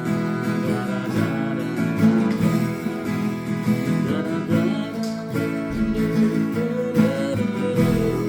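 Acoustic guitar strummed in a steady rhythm, playing a song, with a melody line coming over it in the second half.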